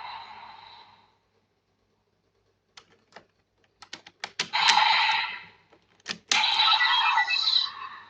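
A Kamen Rider Geats DX Raise Buckle toy being handled: several sharp plastic clicks, then the toy's electronic sound effects playing from its speaker in two loud bursts, the second starting a little past the middle.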